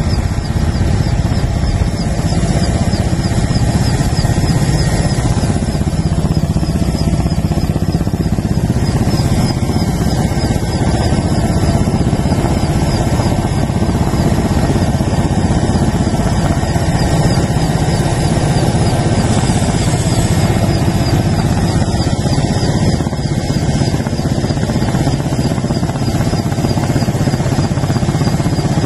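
Steady, loud drone of a small aircraft's engine, heard from inside the cabin.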